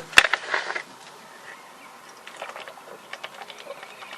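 A person handling and drinking from a bottle of water: a brief rustling burst with a sharp click about a fifth of a second in, then faint scattered small clicks.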